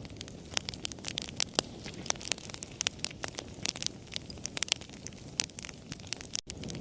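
Wood fire crackling in a fireplace: many sharp pops and snaps over a low, steady rumble of flames, with a split-second gap in the sound near the end.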